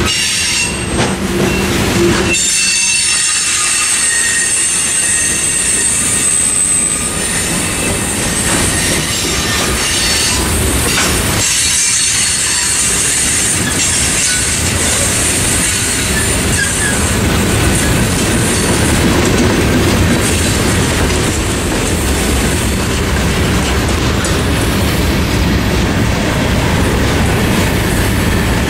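Freight cars of a mixed freight train rolling past, a continuous rumble and wheel clatter on the rails, with high steady wheel squeal through the first half.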